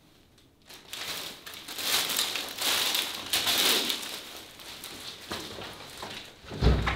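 Thin plastic wrapping of sky-lantern packages crinkling and rustling as it is handled, in irregular bursts starting about a second in, with a low thump near the end.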